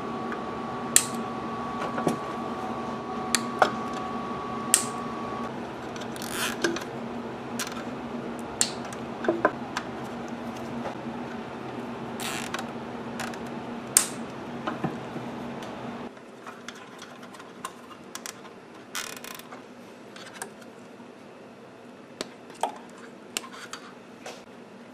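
Nylon cable ties being ratcheted tight and snipped with diagonal cutters while wires are handled in an aluminium amplifier chassis: a scattering of sharp, irregular clicks and snaps. A steady low hum runs underneath and drops away about two-thirds of the way through.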